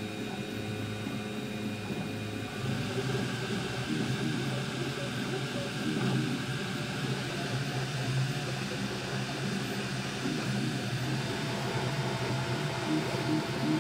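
Prusa i3 3D printer running a print: its stepper motors hum in pitches that keep jumping as the print head moves, over the steady whir of its fans. The fan noise grows a little louder about two and a half seconds in.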